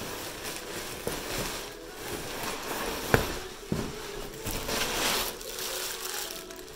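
Cardboard shipping box being opened and handled: rustling and crinkling of cardboard and packing, with two sharp clicks a little over three seconds in.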